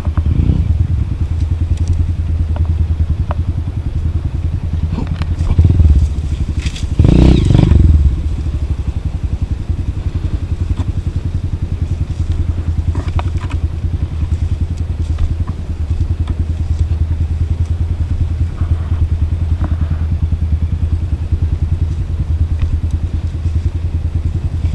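Motorcycle engine running at low revs with a steady pulsing rumble, with a louder rush of noise about seven seconds in.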